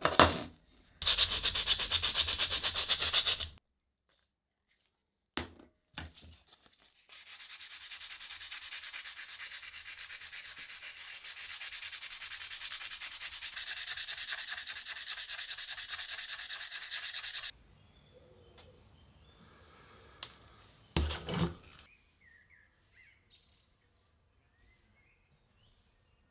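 A metal file rasping in quick, even strokes on a small cast-iron part of a Stanley 75 bullnose plane. After a pause and a couple of clicks, sandpaper rubs back and forth on the plane's steel blade for about ten seconds. A knock follows near the end, then faint chirps.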